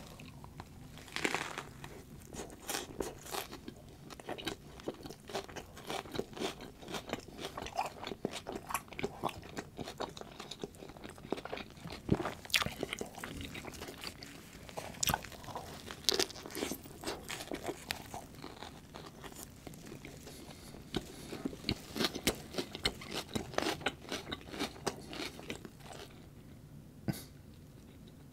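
Close-miked biting and chewing of a turkey Swiss sandwich: a steady run of many short, sharp mouth and bread sounds at an irregular pace, thinning out near the end.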